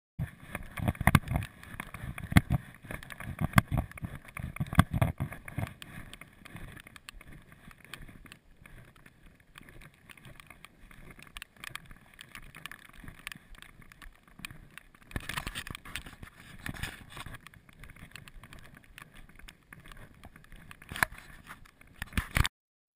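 Wind rumble and handling noise on a body-worn action camera's microphone as the wearer walks through grass, with irregular clicks and thumps. It is louder for the first several seconds, then quieter, and cuts out just before the end.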